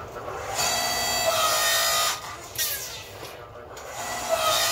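Two bursts of electric arc welding, a bright crackling hiss with a steady whine in it, the first about a second and a half long and the second about a second, closing the back end of a layered steel billet with a weld.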